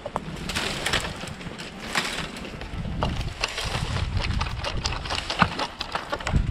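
Plastic mesh netting being pulled and torn off a wooden coop post, giving an irregular run of crackles, snaps and rustles.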